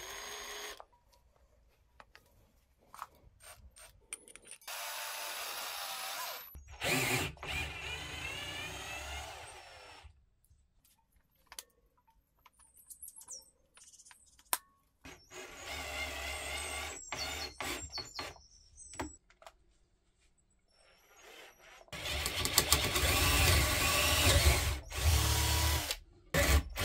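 Parkside PWBSA 12 A1 12 V cordless angle drill running in several bursts of a few seconds each, with handling clicks between them. In one of the bursts the motor's pitch falls. The loudest and longest run, near the end, is the drill boring a twist bit into a wooden board.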